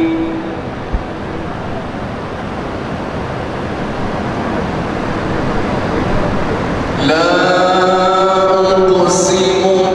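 A man's amplified voice chanting a Muslim supplication (dua) in long, melodic held notes. A held note ends just after the start, a steady rushing background noise fills the next few seconds, and the chanting resumes about seven seconds in.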